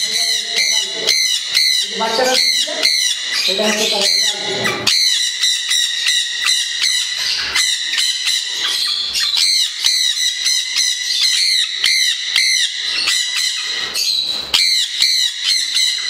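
A roomful of caged parrots, conures among them, squawking continuously: shrill calls repeated several times a second and overlapping, with no pause.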